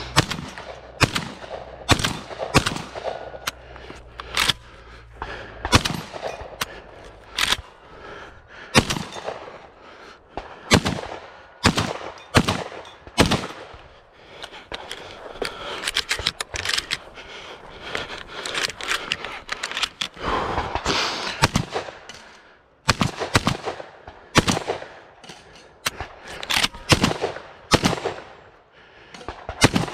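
Shotgun firing repeatedly in quick strings of shots, most about a second apart, with short breaks about halfway through and again about two-thirds of the way.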